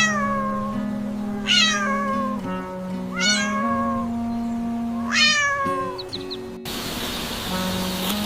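A cat meowing four times, each meow starting high and falling in pitch, over background music with long held notes. About two-thirds of the way in the meows stop and the music goes on alone.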